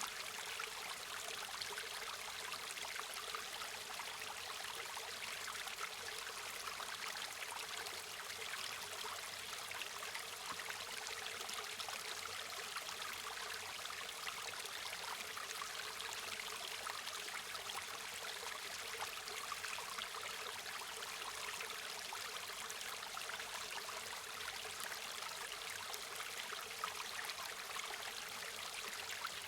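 River or stream water running steadily over stones: a continuous rushing and babbling, even in level throughout.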